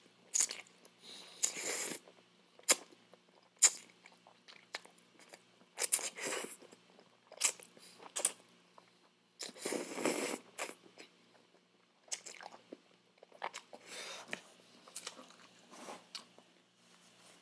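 Close-miked eating of Jollibee spaghetti: noodles slurped off a fork and chewed, with irregular wet mouth smacks. It is loudest in one longer stretch about ten seconds in.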